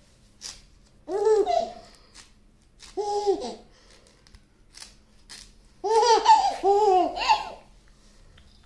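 Baby laughing in three short bouts, the last a longer run of several laughs in a row.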